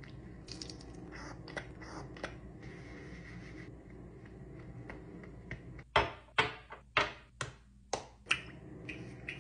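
Skincare tubes and jars set down one after another on a bathroom countertop: soft handling noises at first, then about seven sharp clacks in quick succession in the last few seconds, over the low steady hum of a room heater.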